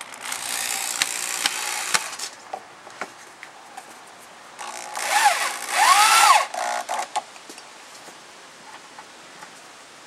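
Corded electric drill driving screws into pine boards, run in two bursts: about two seconds at the start, then a louder burst around five to six seconds in, where the motor's whine rises and falls as the trigger is squeezed and let go. A few light clicks of handling follow.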